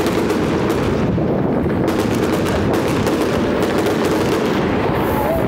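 Many fireworks going off at once: a dense, continuous crackle of overlapping bangs with no let-up.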